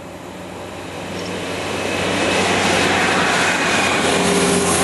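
Class 153 and MTU-engined Class 170 diesel multiple units climbing a 1 in 37 bank on full power. The engine noise swells over the first two seconds as the units pass close by, then holds steady, with a thin high whine over the low engine note.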